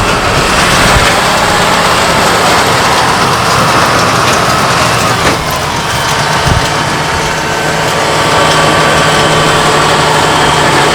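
Tractor diesel engine and big square baler running, a loud steady mechanical drone, with a brief knock or two about halfway through.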